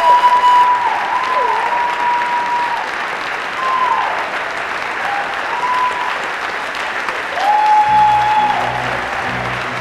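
Theatre audience applauding, with long whistles riding over the clapping. Near the end, low rhythmic music from the band starts up under the applause.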